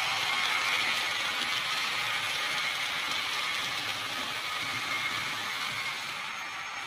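HO scale model train running on the track: a steady rattle of small wheels and motor whir that slowly fades as the train moves away.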